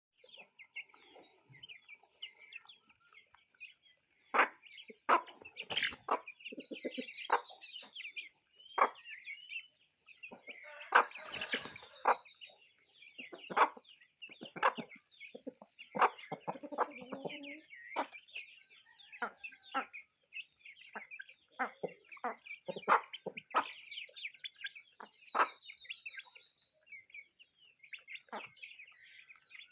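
A flock of free-range chickens clucking, with many short calls scattered irregularly and overlapping. A louder, noisier squawk comes about eleven seconds in.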